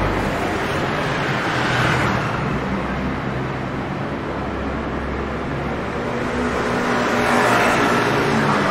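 City street traffic: a vehicle passes about two seconds in, and near the end a motor scooter's engine comes up close as it rides by.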